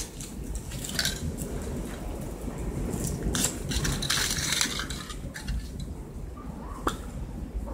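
Foil wrapper of a chocolate surprise egg crinkling as it is peeled off and crumpled, with a sharp click near the end, over a low background rumble.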